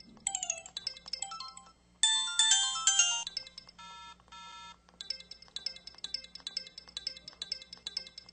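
Samsung SPH-S4300 mobile phone playing its built-in sound-effect tones. It starts with a run of short melodic blips, plays a louder, brighter jingle about two seconds in and two held beeps around four seconds, then finishes with a quick, even patter of electronic blips.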